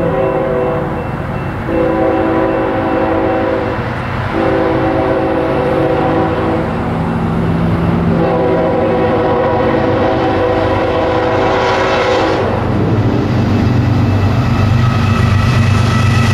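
Air horn of a leading BNSF ES44C4 diesel locomotive, a Nathan K5HL five-chime, sounding a series of long blasts with short breaks as the train approaches, the last held about four seconds. After that the locomotives' engines and wheels grow steadily louder as they draw near.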